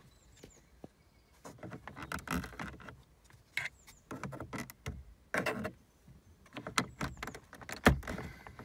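Blue plastic trim tool levering under a dashboard trim panel beside a Ford Fiesta Mk8's instrument cluster: irregular small clicks, scrapes and creaks of plastic, with one louder sharp click near the end.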